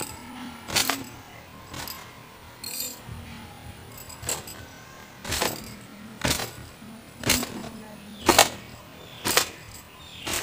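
Towel being snapped against long wet hair to dry it, in repeated sharp slaps about once a second.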